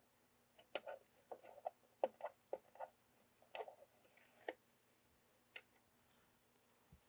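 Faint, scattered clicks and light taps of hands handling parts on a 3D printer's frame: a quick run of them over the first few seconds, then a single click a little later.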